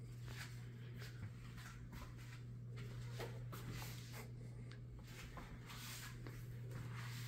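Faint footsteps and light handling rustles over a steady low hum in a quiet small room.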